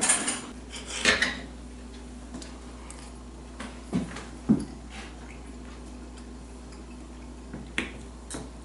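Knife and fork clinking and scraping on a plate while cutting seared beef tongue, a few separate strokes spread out with pauses between them. A faint steady hum lies underneath.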